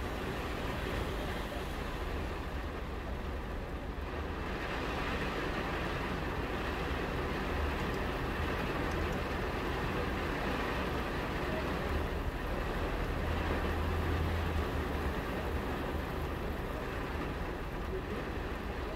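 Heavy rain falling steadily on glass, heard from behind it, with a low rumble underneath that swells a little past a third of the way in and again later.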